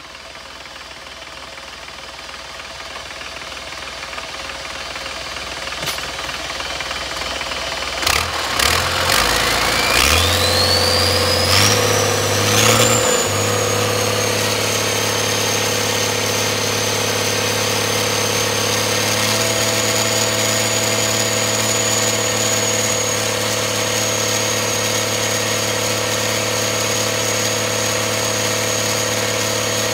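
Cummins diesel engine on a test run. It builds up, then about eight seconds in speeds up in a few steps, with a whine that rises steeply in pitch. It settles into steady, loud running with a high whistle over the low drone.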